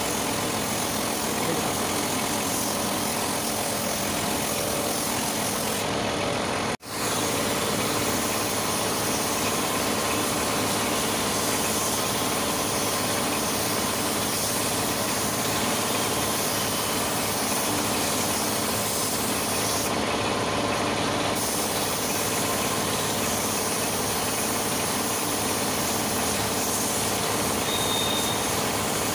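Compressed-air spray gun hissing steadily over the continuous hum of an air compressor. The high hiss thins out briefly twice, and all sound drops out for an instant about seven seconds in.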